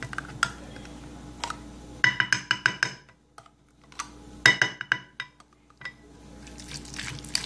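Metal spoon clinking against the jar and the glass dish while scooping mayonnaise onto beet salad: a quick run of ringing clinks about two seconds in and another about four and a half seconds in, with a few lighter taps between.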